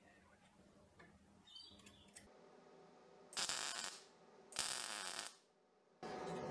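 Two short bursts of MIG welding arc crackle, tack welds joining a steel nail to a steel flat bar, a little over a second apart. They follow faint clicks of the metal pieces being handled. Near the end a steady hum starts abruptly.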